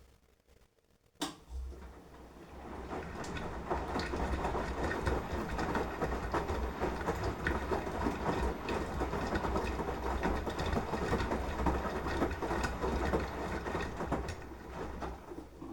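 Beko front-loading washing machine in its wash phase: a click, then the motor turns the drum and the laundry and water slosh and tumble for about twelve seconds before the drum winds down and stops.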